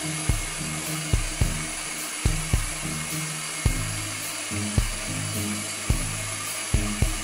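Steady whir of the Cecotec Windroid 870 window-cleaning robot's suction fan as it crawls across the glass. Over it runs background music with a thumping beat and low bass notes, which is the loudest thing heard.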